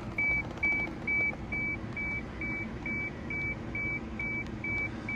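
Car warning chime beeping evenly, about two high beeps a second, over a low steady hum.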